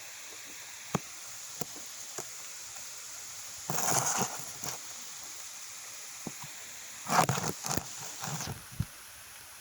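Rain falling steadily as an even hiss, with scattered drops ticking and tapping. About 4 s in, and again around 7 to 8 s in, short louder rushes of noise, as from gusts of wind.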